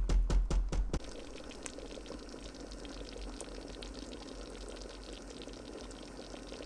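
Thick, creamy chicken pot pie filling bubbling at a simmer in a Ninja Foodi XL's pot on sear/sauté: a steady crackle of many small pops. A quick run of loud knocks in the first second is the loudest part.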